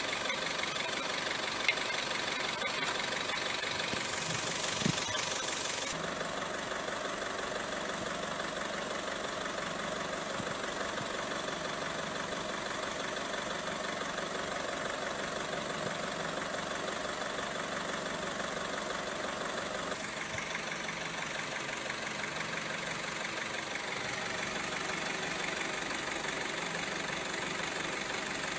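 Mercedes W210 E220 CDI's four-cylinder common-rail diesel idling steadily. Two light clicks sound a few seconds apart near the start.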